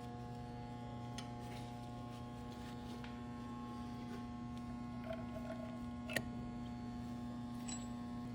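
Steady electrical mains hum, with a few faint clicks; the sharpest comes about six seconds in.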